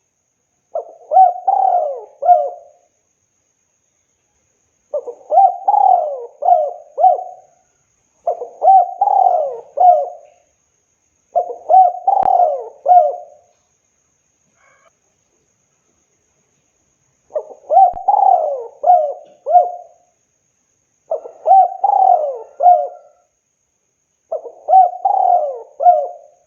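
Spotted dove cooing: seven phrases of several short, quick coo notes each, separated by pauses of one to two seconds, with a longer pause about halfway through.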